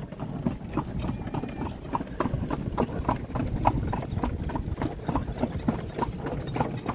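Horse's hooves clip-clopping in a quick, even rhythm on a paved lane as it pulls a cidomo (horse cart), over the steady low rumble of the cart rolling.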